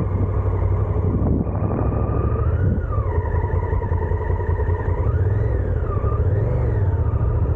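Honda Africa Twin's parallel-twin engine running as the motorcycle pulls away. It is a steady low rumble, and its pitch rises and falls a few times.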